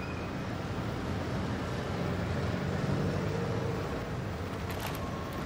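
Steady low rumble of motor traffic, swelling a little in the middle and easing again.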